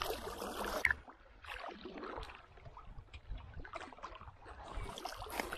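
Water splashing and lapping around a small fishing boat. It opens with a short loud splash and goes on with scattered light knocks and clicks.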